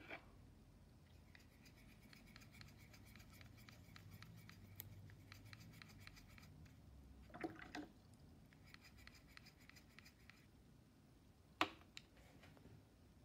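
Paintbrush scrubbing on a watercolour paint pan to load it with paint: soft, fast scratching in two spells, with a short knock between them and a sharp click near the end.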